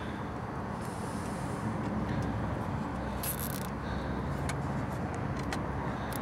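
Steady low rumble of outdoor vehicle and traffic noise, with a few light clicks in the second half and a short hiss about three seconds in, as needle-nose pliers work a zip tie through.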